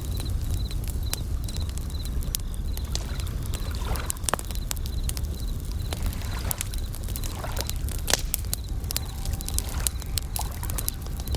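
Campfire crackling with frequent sharp snaps, over a steady low rumble and waves washing in and out every few seconds. Japanese bell crickets chirp through it in a quick, even, high-pitched pulse.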